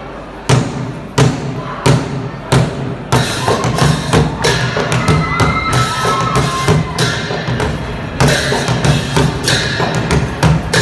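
Newari dhimay drum and cymbals starting up: slow, evenly spaced heavy strokes about a half-second in, quickening into a dense, driving rhythm after about three seconds, with a faint thin melody line above it around the middle.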